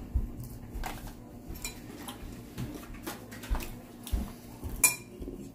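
Scattered clicks and clinks of a fork against a ceramic bowl and of crab legs being handled in a metal tray while eating, with the sharpest clink near the end.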